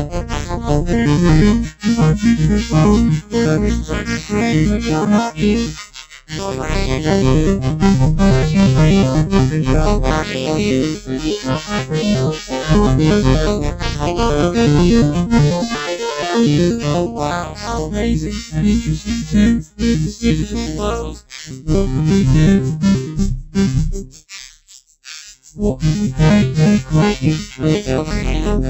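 Electronic synthesizer music with a steady repeating pattern, dropping out briefly a few times, once for about a second near the end.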